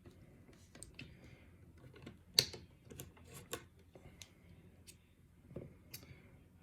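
Scattered light clicks and taps of small metal lock parts and tools being handled as a picked pin-tumbler lock is taken apart, with one sharper click about two and a half seconds in.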